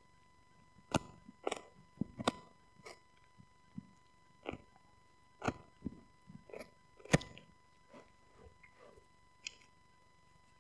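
A husky gnawing a rawhide-style bone: irregular sharp crunches and clicks of teeth on the hard chew, one every half second to a second, the loudest about seven seconds in.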